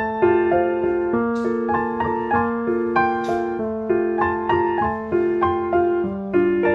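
Background music: a gentle piano melody of evenly paced notes, with two brief soft swishes about a second and a half and three seconds in.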